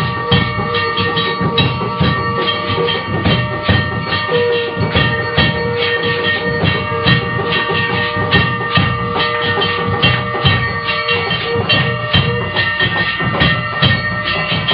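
Rapid, steady percussion with fast repeated strokes over several sustained ringing tones, in the manner of temple aarti music with drums and bells.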